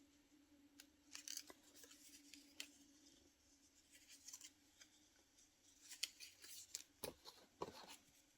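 Scissors cutting through a paper photo page: faint, irregular snips and paper rustle, a few scattered ones early and a quicker cluster near the end.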